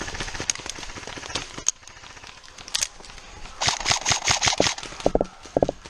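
Airsoft guns firing: scattered single shots, then a rapid automatic burst of about ten shots a little over halfway through.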